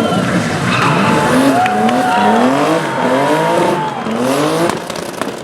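Rally car accelerating hard, its engine revs climbing and dropping back through several quick upshifts, with a held tyre squeal in the middle. The sound falls away near the end as the car pulls off.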